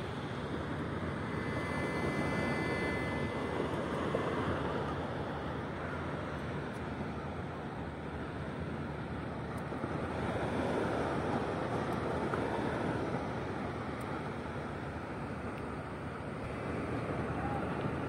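Steady rush of wind and surf, swelling and easing a few times.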